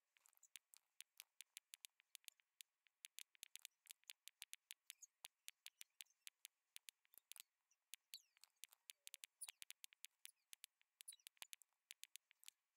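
Faint, irregular clicking of a computer mouse, single clicks mixed with quick runs of clicks.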